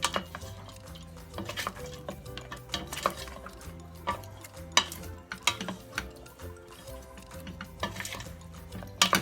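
A utensil stirring and scraping in a cooking pot, with irregular clinks against its sides and one sharp clink near the end, over background music.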